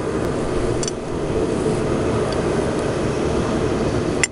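Steady rushing mechanical noise of shop equipment, even and without a clear pitch, with a couple of faint ticks and one sharp click near the end.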